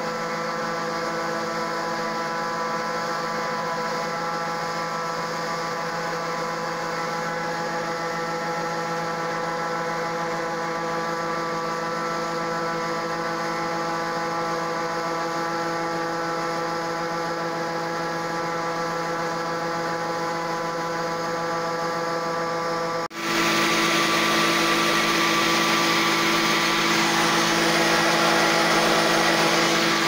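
John Deere 9500 combine running with its unloading auger emptying shelled corn into a grain truck: a steady hum with several held tones. About 23 s in it cuts to a louder, rushing hiss of corn pouring into the truck box over the machine's drone.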